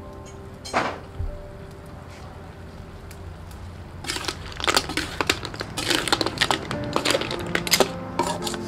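Snail shells clattering against each other and the metal wok as a ladle stirs them with greens, a dense run of sharp clicks and scrapes starting about four seconds in.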